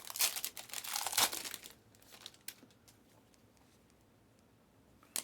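Crinkling and rustling of plastic trading-card packaging being handled for the first second and a half or so, then quiet, with one sharp click near the end.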